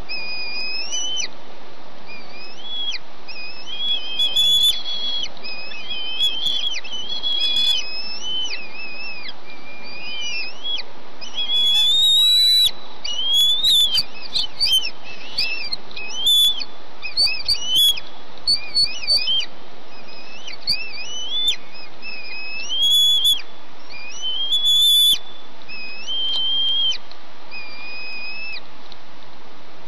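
Bald eagle eaglets begging for food: a long series of high, thin whistled calls that rise and fall in pitch, coming thickest in the middle, over a steady hiss.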